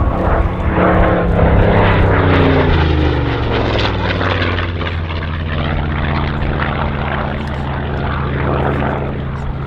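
Yak-3 fighter fitted with a Pratt & Whitney R-2000 radial engine flying past. Its engine and propeller note drops in pitch as it passes, from about one to four seconds in, then runs on at a steady lower pitch.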